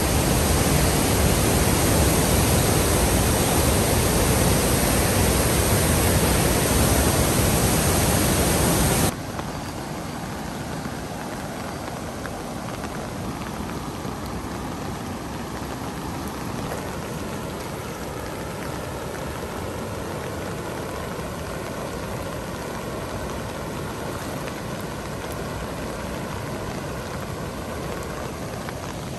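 A river in flood after heavy rain, its muddy torrent rushing in a loud steady rush. About nine seconds in, the sound cuts abruptly to a quieter steady hiss of rain falling on the flooded riverbank.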